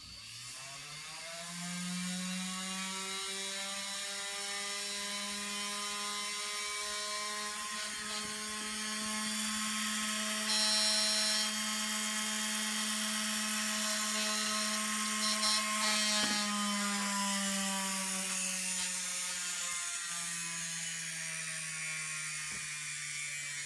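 3D-printed gyro spun by a DC motor, spinning up over about two seconds to a steady high-speed whine with a rattling, buzzing noise. Its pitch drops a little near the end.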